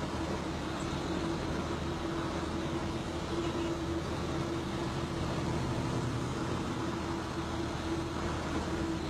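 Steady engine and road noise of a moving vehicle, heard from inside it, with a steady hum over it.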